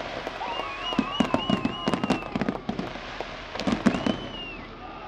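Fireworks bursting in rapid crackling clusters of sharp bangs, about a second in and again near four seconds, dying down near the end.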